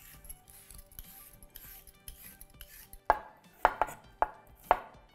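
Faint scraping of a vegetable peeler on a sweet potato, then, from about three seconds in, a chef's knife cutting through the sweet potato and knocking sharply on a wooden chopping board, about six times.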